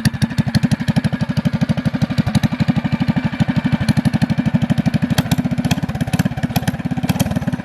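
Predator 212cc single-cylinder four-stroke engine with a stage 1 kit (K&N-style filter, bigger jet, custom header and RLV muffler) running steadily on a mini bike, its exhaust putting out an even, rapid string of firing pulses.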